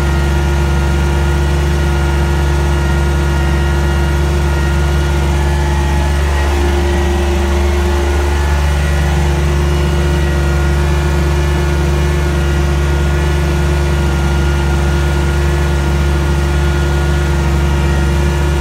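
John Deere 755 compact tractor's three-cylinder diesel engine running steadily and loud. About six and a half seconds in, its low note shifts briefly for roughly two seconds, then settles back.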